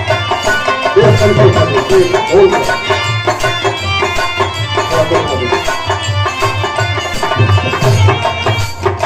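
Live Birha folk music: hand drums beat a steady rhythm under sustained melodic instrument tones.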